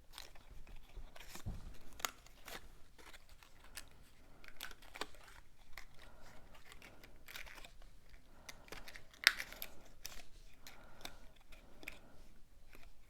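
Cardstock being handled and slid into a slot: light paper rustling and scraping with scattered small taps, the sharpest about nine seconds in.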